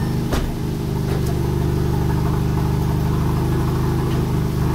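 Audi sedan's turbocharged four-cylinder engine idling steadily, with the driver's door thudding shut about a third of a second in.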